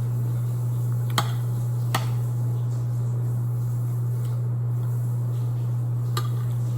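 A steady low hum, with three short sharp clicks, about one second in, about two seconds in, and near the end.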